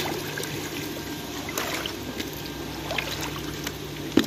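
Pond water lapping and trickling, with a few small splashes, over a steady low hum; a sharp knock near the end.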